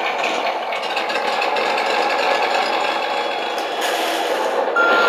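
A 1/12 scale RC 8x8 military truck driving, its sound module playing a steady simulated diesel engine note over the electric drivetrain's rattle. A high beep sounds near the end.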